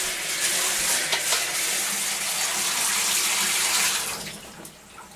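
Water running hard from a tap as something is washed under it, a steady rushing hiss that is shut off about four seconds in.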